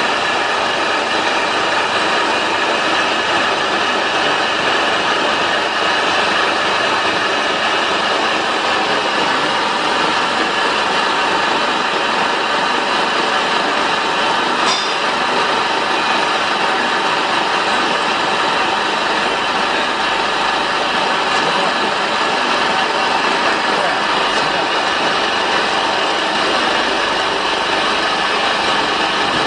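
Small flat-die animal feed pellet mill running under load, its electric motor and gearbox turning the die and rollers as feed is pressed into pellets. It is a loud, steady, even mechanical running with a mix of humming tones.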